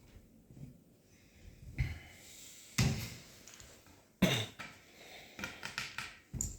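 Hard knocks, clicks and scrapes of a Lee-Enfield No. 4 Mk 2 rifle being taken apart by hand as the trigger guard is worked out, with three sharp clunks: about three seconds in, about four seconds in and near the end.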